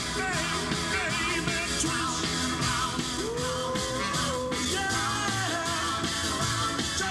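Rock-and-roll song with a singer and a steady beat.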